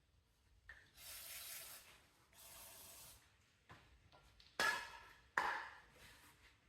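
Two short hisses of an aerosol spray lubricant (WD-40), each about a second long, followed a moment later by two sharp metal clanks with a brief ring.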